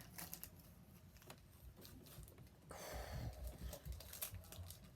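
Faint rustling and soft taps of Pokémon trading cards and foil booster-pack wrappers being handled, with a slightly louder stretch of rustle about three seconds in.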